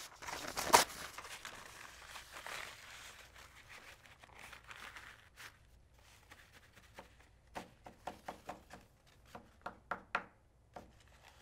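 Paper towel rustling and crinkling as it is handled and used to wipe the plating solution off a freshly nickel-plated driver. There is one sharp rustle about a second in, and a run of short crinkles near the end.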